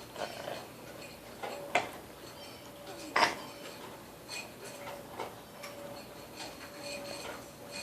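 A spoon clicking and scraping against a yogurt dish as a toddler feeds herself: a string of irregular light knocks, the loudest two a little under two seconds and about three seconds in.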